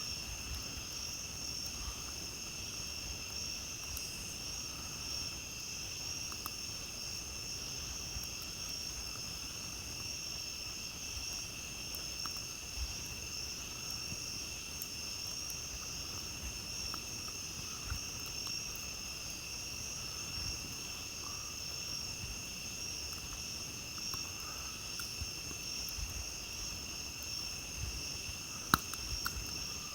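Steady, unbroken chorus of night insects calling in several high pitches, with scattered faint crackles and pops from a campfire and one sharper pop near the end.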